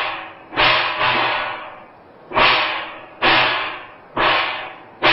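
Cymbals crashing in a slow, steady beat, about once a second, each crash ringing and fading over about half a second, with a low drum note under the strokes: Chinese opera percussion marking a marching procession.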